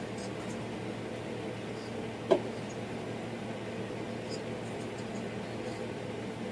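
A steady machine hum with several held tones, like a room appliance or fan running, and one short, sharp knock about two seconds in.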